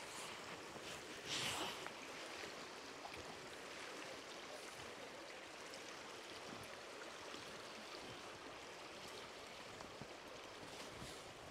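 Steady rushing of a shallow river running over a stony bed, with one brief louder surge about one and a half seconds in.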